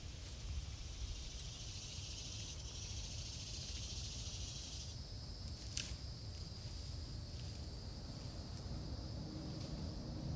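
Woodland ambience: a steady high hiss of insects over a low rumble, the insect sound changing about five seconds in, with a single sharp click near six seconds. Low sustained music tones come in near the end.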